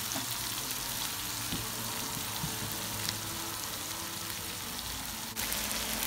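Sliced onions, tomato, coriander and green chillies sizzling in hot oil in a nonstick frying pan, a steady hiss, with a few light taps and scrapes from a wooden spoon stirring them.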